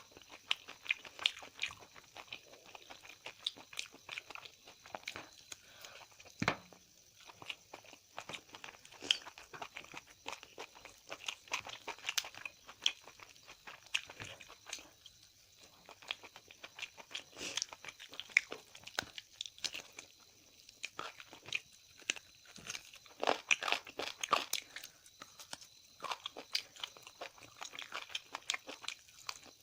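A person eating: chewing and crunching food, with many short, irregular wet clicks and snaps.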